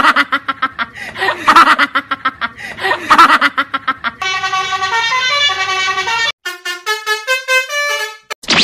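Multi-tone 'telolet' bus horn playing a tune. It opens with rapid choppy blasts, then gives a run of held notes changing pitch in a quick melody, and ends with short separate notes stepping up and down.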